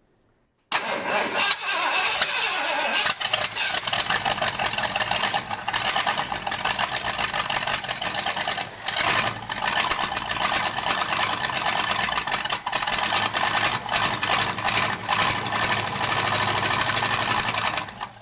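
A 1978 Ford F-150's 351 V8 fires up suddenly under the hood, running on fuel poured into the carburetor bowl, with the fuel pump not yet connected. It runs rough and is not firing on all eight cylinders. It keeps running for about seventeen seconds, then dies as the bowl runs dry.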